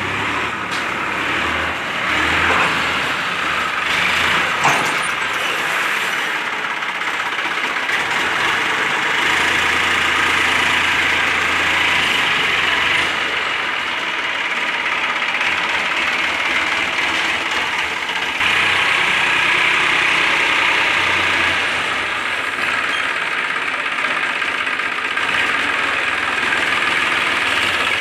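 A Massey Ferguson 7250 Power Up tractor's three-cylinder diesel engine running as it hauls a loaded trailer. The engine note steps up and down in loudness a few times.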